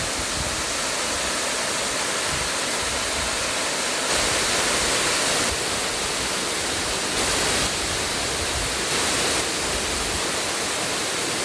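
Steady rush of flowing water, as from a waterfall or fast stream, an even hiss with no distinct events. It grows a little louder for about a second and a half around four seconds in, and briefly twice more later.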